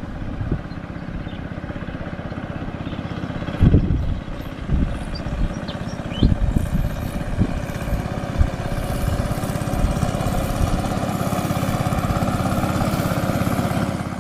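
Small motorcycle engine running steadily while being ridden, with a few knocks along the way, the loudest about four seconds in.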